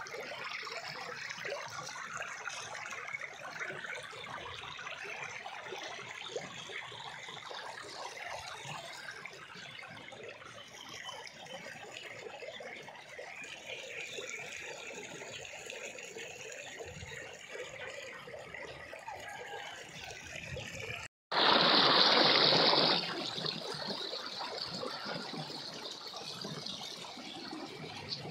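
Shallow stream flowing, a steady rush of running water. About three-quarters of the way through, the sound cuts out for an instant and then comes back as a much louder rushing noise for under two seconds, before the even water sound returns.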